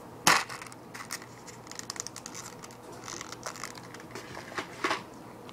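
Handling noise from hands moving close to the microphone: a loud rustle about a quarter second in, then scattered light clicks and rustles.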